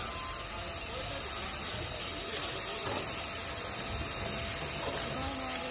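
Full-size steam locomotive hissing steadily as steam escapes from it.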